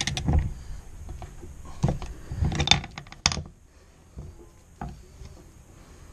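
Metal clinks and knocks of a wrench and socket on a brass fitting being screwed into an aluminium valve cover. There is a cluster of sharp clanks in the first three and a half seconds, then a few lighter clicks.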